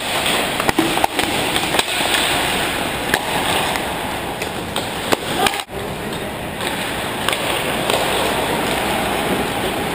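Ice hockey skates scraping and carving across the ice, with many sharp clacks of sticks and puck.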